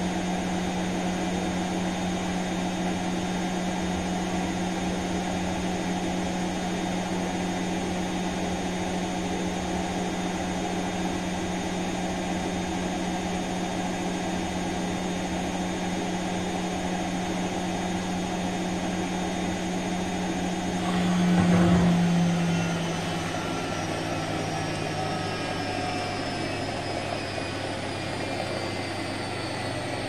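Bosch Serie 4 front-load washing machine spinning its drum with a steady motor hum; about twenty seconds in there is a brief louder surge, then the motor whine falls slowly in pitch as the drum slows down.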